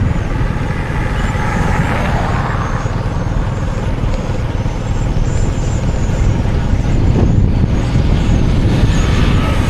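Steady low rumble of a motor vehicle or road traffic, with faint high chirps above it.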